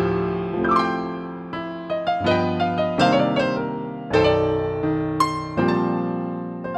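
Keyboard playing on a sampled Roland MKS-20 digital piano sound: a series of struck chords, each left to ring and fade before the next.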